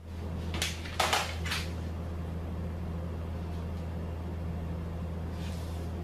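A metal straight edge being set down and shifted into place on a flat sheet of duct metal: a few short clacks and scrapes in the first couple of seconds and a faint scrape near the end. A steady low hum runs underneath.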